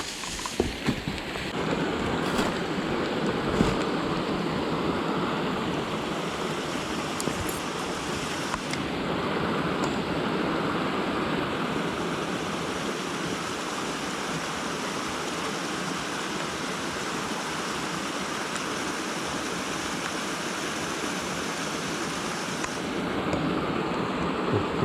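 Mountain stream water rushing steadily over rocks, with a few faint clicks near the start.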